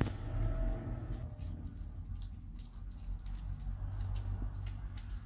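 British Shorthair kittens eating raw minced meat from a steel bowl: irregular wet smacking and small clicks of chewing and licking.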